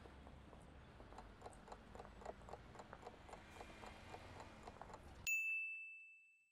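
Countdown-timer sound effect: a clock ticking faintly, about four ticks a second, then a single loud bell ding about five seconds in that rings out and fades, signalling that the time is up.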